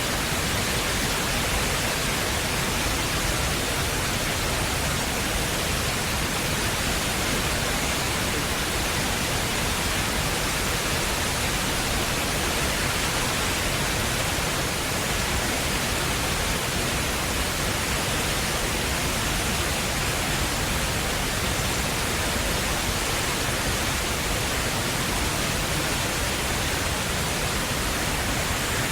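Steady, even rush of water pouring down the Rain Vortex, Changi Airport's indoor waterfall, with no pauses or changes.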